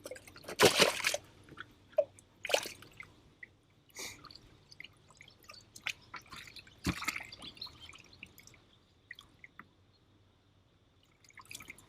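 Water splashing and dripping: a few short splashes and wet slaps, the loudest about a second in, with scattered drips between them, as bass are handled in water one at a time during counting.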